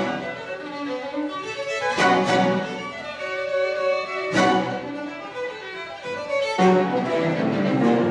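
A string orchestra of violins, cellos and double basses playing classical music, with violins carrying the melody and sustained bowed chords. Strong accented chords come about every two seconds.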